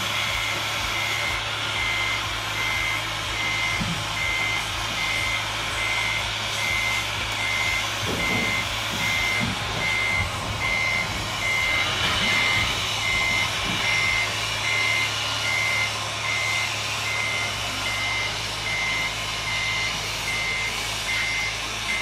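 Reversing beeper of a radio-controlled scale model truck, a steady high beep repeating a little over once a second, over a steady low hum.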